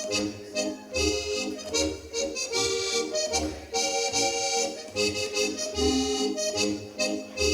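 Accordion playing lively traditional Alpine dance music in a steady rhythm, with a pulsing bass.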